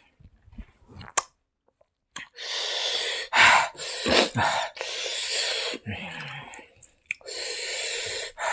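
A man eating by hand close to the microphone: wet chewing and lip smacks, a couple of sharp mouth clicks, then long loud hissing breaths and short gasps. The gasping fits the heat of chili in morok metpa.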